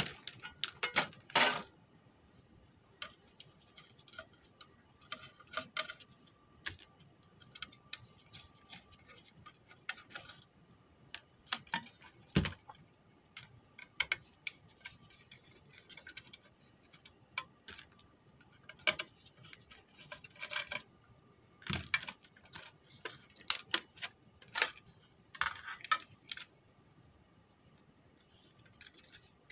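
Irregular metallic clicks and clinks from a car stereo's sheet-metal chassis being handled and unscrewed by hand, with loose screws and a screwdriver set down on a workbench. A few sharper knocks stand out, about a second in, near the middle and about two thirds of the way through.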